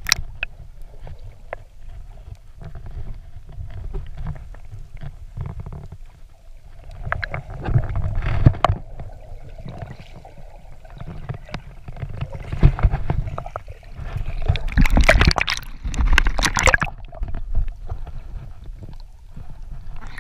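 Sea water sloshing and gurgling against a waterproof camera held at and under the surface: a muffled low rumble with several louder splashing bursts.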